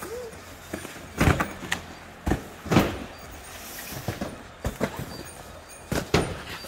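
Cardboard cartons of instant noodles knocking and thudding as they are handled and set down in a box truck's cargo hold: a run of dull thuds in the first three seconds and two more near the end.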